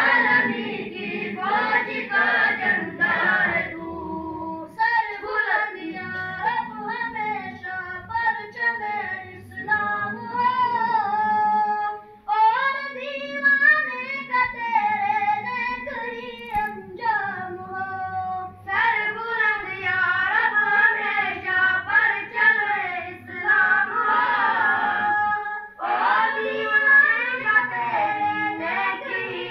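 A boy chanting a recitation from a paper in a high, melodic voice with no accompaniment. His long held notes waver up and down in pitch.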